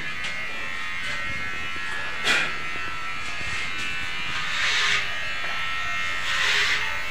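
Electric hair clippers buzzing steadily while cutting a child's hair. The buzz grows louder and rasping for a moment a few times as the blades work through the hair: about two seconds in, near five seconds and near six and a half.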